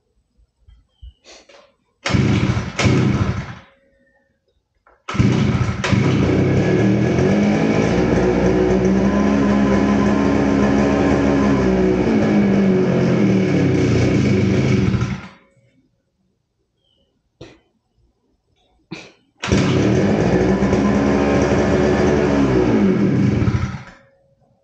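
Petrol brush cutter engine, which had been refusing to start, being started: it fires briefly about two seconds in, then catches and runs for about ten seconds, its speed rising and then falling before it stops. It starts again near the end and runs a few seconds, slowing as it dies.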